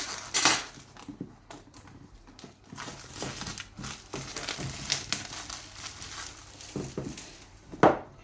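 Product packaging being cut open and handled by hand: crinkling and rustling with scattered sharp clicks, loudest in short bursts about half a second in and near the end.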